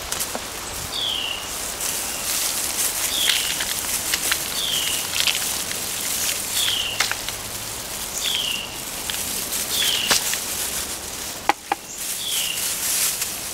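A bird calling again and again, one short falling chirp about every second and a half, over outdoor hiss and scattered rustles and clicks from handling plants and soil. A sharper crack comes near the end.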